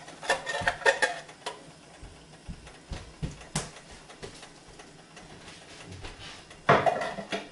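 A spoon clinking and knocking against a saucepan while tomato purée is spooned into simmering rice and stirred. There are light clinks in the first second or so, a sharper knock about three and a half seconds in, and a brief clatter near the end.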